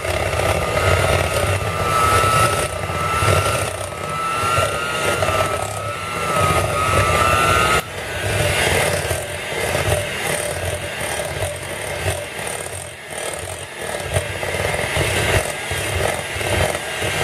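Electric hand mixer running, its beaters churning thick cookie dough in a glass bowl. The motor's whine shifts in pitch about eight seconds in.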